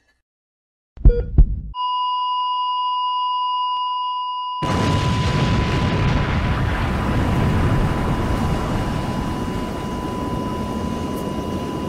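Edited sound-effect sequence: two loud crashing impacts about a second in, then a steady high-pitched beep tone that holds on unbroken. From about five seconds in, a dense low rumbling noise sets in underneath the tone.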